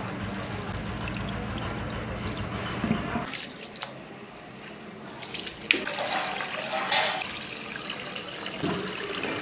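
Rice being washed by hand in water: water pouring and splashing as the grains are swished and rinsed, in irregular splashes. A low steady hum runs under the first three seconds and stops.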